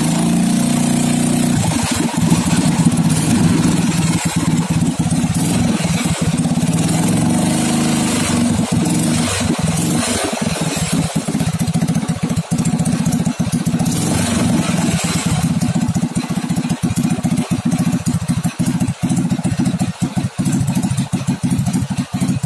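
Honda Supra Fit 110cc air-cooled four-stroke single-cylinder motorcycle engine running steadily in a go-kart frame, turning the bare rear axle.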